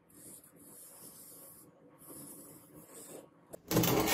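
Marker pen drawn along a steel leaf-spring blade in two long strokes, a soft hissing scratch. Near the end, a brief, much louder rubbing noise.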